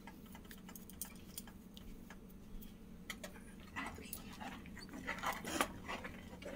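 Metal spoon stirring thickened milk in a saucepan, soft scraping and swishing strokes that come more often in the second half, over a low steady hum.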